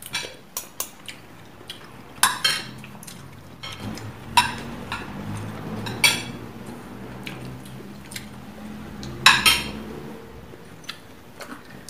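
Metal forks and spoons clinking and scraping against plates during a meal: scattered sharp clinks, the loudest about nine seconds in.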